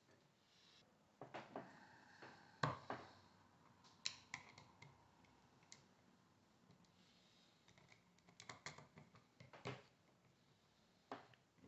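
Faint, scattered clicks and taps of a screwdriver and small metal parts being handled while a Bafang geared hub motor is put back together, the loudest knock about two and a half seconds in.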